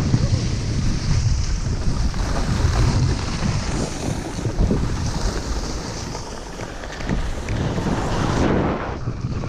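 Wind buffeting the microphone and skis scraping over snow during a downhill run: a loud, continuous rumble and hiss that eases briefly about six seconds in.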